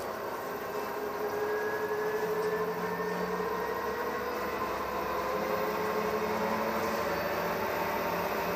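LG washing machine drum spinning up towards 1000 rpm on freshly replaced bearings: a steady whir with a whine that slowly rises in pitch as it speeds up. It runs smoothly, without a bearing rumble or knock.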